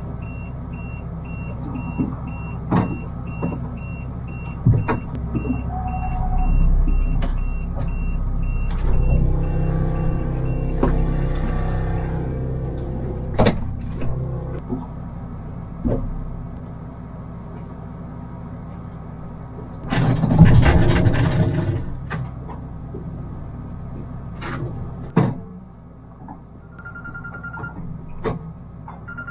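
A small boat's outboard motor runs steadily, with water noise along the hull and scattered knocks. About twenty seconds in there is a brief, louder rush of noise. Faint electronic beeping pulses through the first dozen seconds.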